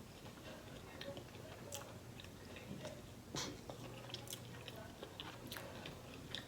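A person chewing and biting fast food close to the microphone, with scattered small wet clicks and light crunches. The loudest bite comes about three and a half seconds in.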